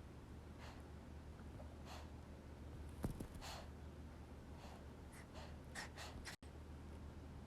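A baby snoring softly in its sleep: a string of short, noisy breaths at uneven intervals, with a sharp click about three seconds in.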